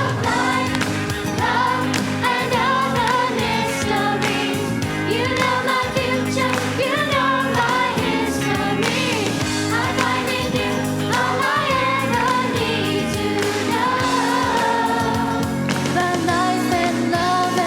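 Youth choir singing a song over instrumental accompaniment.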